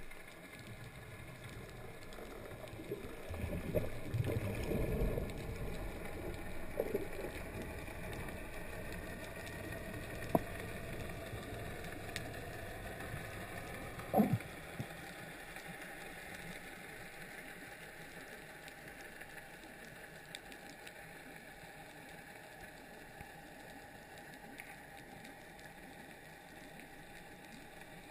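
Underwater ambience heard through a waterproof camera housing: a steady hiss of water with uneven rustling in the first few seconds, a sharp click about ten seconds in and a louder knock around fourteen seconds in.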